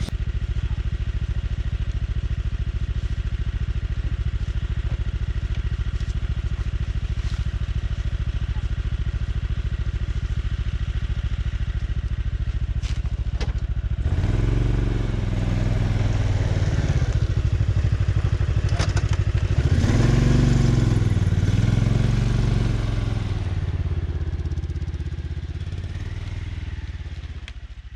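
Snowmobile engine idling steadily, then revving up and down in two surges as the machine pulls out through deep snow after being bogged in a swamp, fading as it moves away near the end.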